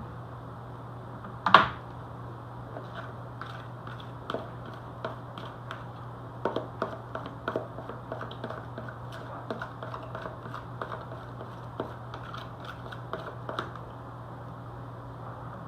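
Light, irregular clicks and taps of hands and utensils working at a kitchen counter while preparing battered cauliflower, with one sharper click about a second and a half in, over a steady low hum.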